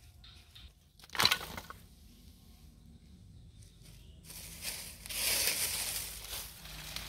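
Water hyacinth stems and leaves being broken and crushed by hand: one sharp snap about a second in, then a longer stretch of crackling and rustling from about four seconds on.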